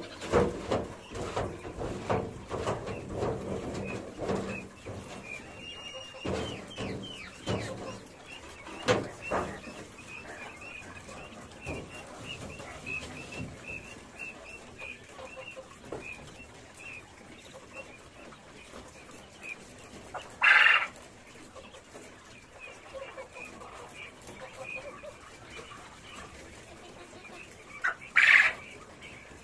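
Caged quail chirping in a long run of short repeated notes, with two loud short calls about 20 seconds in and near the end. In the first several seconds, knocks and scrapes of manure trays being emptied into a metal wheelbarrow.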